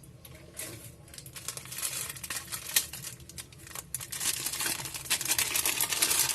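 Rubber bands being stretched and wrapped around a smartphone to press its newly glued display down while the glue sets: a run of rustling and small clicks and snaps, getting busier toward the end.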